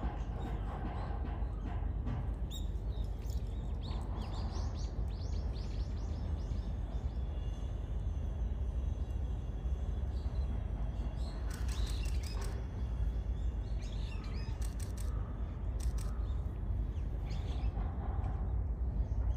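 Outdoor ambience: a steady low rumble with small birds chirping, including a quick run of high chirps a few seconds in. Later come a few short sharp clicks.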